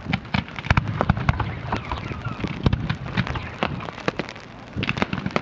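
Fireworks going off in a rapid, irregular run of sharp pops and crackles, several a second.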